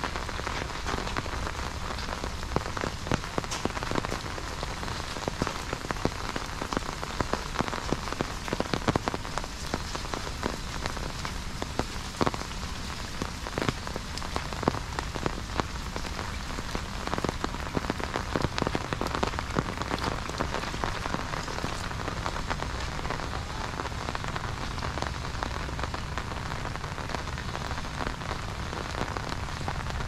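Steady rain, with many sharp taps of drops striking an umbrella held overhead.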